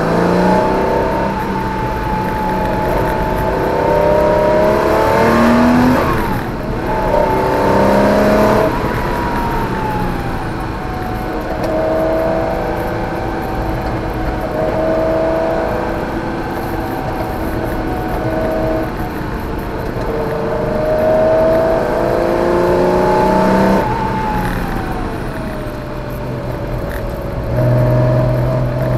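Porsche 914/6's air-cooled flat-six heard from inside the cabin, pulling hard up through the revs, with gear changes cutting the note about six seconds in and again near the end, and easing off in between for corners.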